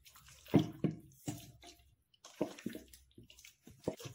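Wet plops and squelches of marinated chicken pieces sliding from a steel bowl into a clay pot, with a hand scraping the bowl: several short, sudden splats, the loudest about half a second in.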